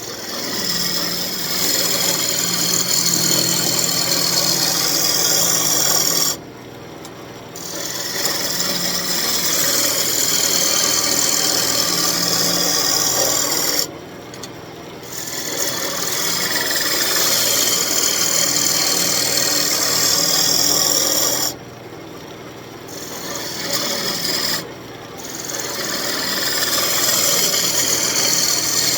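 Turning tool cutting a spinning elm spoon blank on a wood lathe: a loud hissing scrape of wood being cut over the lathe's steady motor hum. The cut breaks off briefly four times, leaving just the motor, then resumes.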